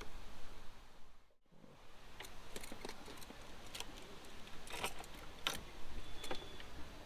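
Car keys jangling and clicking as the key is turned in the ignition, a scatter of small metallic clicks, with a brief high beep near the end.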